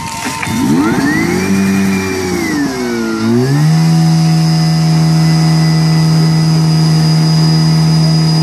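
Portable fire-brigade pump engine revving up and down, then held at steady high revs from about three and a half seconds in.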